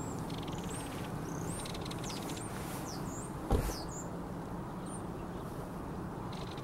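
Birds calling: a string of short, high, up-and-down chirps and fast, dry rattling runs of ticks near the start, over a steady low background rumble. A single thump sounds about three and a half seconds in.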